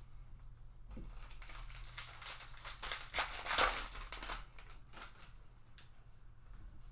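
Crinkling and rustling of a trading-card pack's wrapper and cards being handled. The crinkling is loudest a little past the middle, with scattered small clicks around it.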